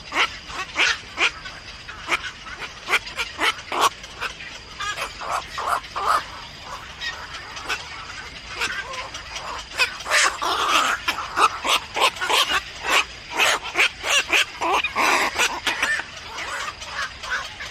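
Birds chirping: a rapid, busy run of short, sharp high calls, thickest a little past the middle, with a faint steady high tone beneath.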